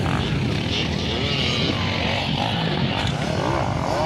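Several motocross dirt bike engines revving on the track, their pitch rising and falling repeatedly as they accelerate.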